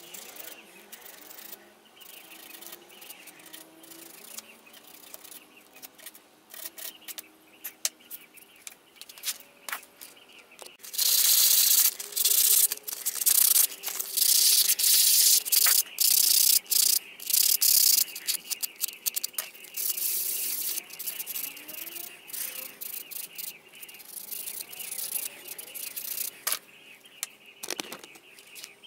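Sandpaper rubbing against a turned wooden piece, in strokes. It is loudest over several seconds in the middle, with quieter rubbing and scattered clicks before and after.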